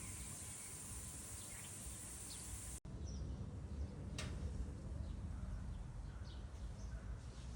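Outdoor ambience with scattered short, faint bird chirps. A steady high hiss cuts off abruptly a few seconds in and gives way to a low rumble, with a single sharp click a little after four seconds.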